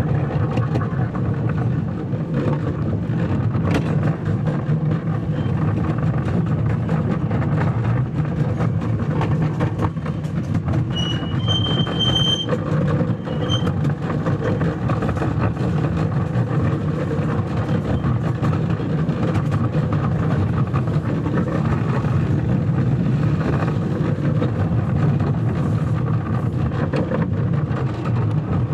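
Small diesel park-ride locomotive running steadily, a low engine drone with scattered clicks and rattles from the train. A brief high-pitched tone sounds in the middle, a short note, a longer one, then another short note.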